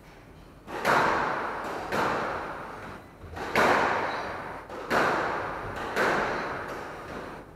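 Squash ball struck hard in a rally, about five loud hits roughly a second apart, each echoing off the court walls.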